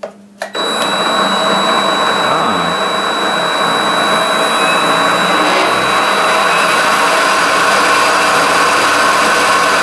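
Variable-speed 210V mini metal lathe starting up in reverse about half a second in and running steadily, with a rough sound and a high-pitched whistle that stops about six seconds in. The owner has not yet traced the noise and is considering the spindle bearings.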